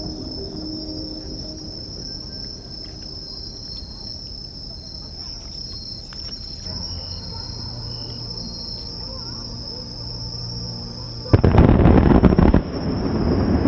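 Crickets chirping steadily in a lull between fireworks. About eleven seconds in, a sudden loud volley of fireworks explosions breaks out, eases briefly, then builds again.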